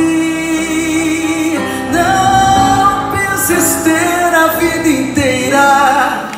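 Live music: a voice sings a held note, then a gliding melodic line, over instrumental accompaniment.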